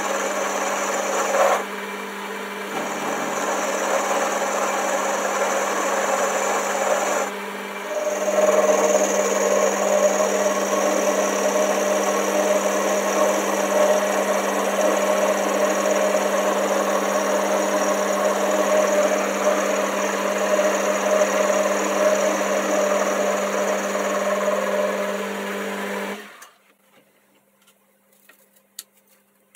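Boxford lathe running with an end mill in its chuck, milling a V groove into a steel bar clamped on the cross slide: a steady hum under a rough cutting noise. The cut eases off briefly about two seconds and seven seconds in. The lathe stops about 26 seconds in, leaving near silence with a few faint clicks.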